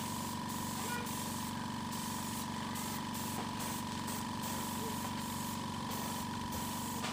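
Air compressor running steadily, a constant hum with a hiss of air over it.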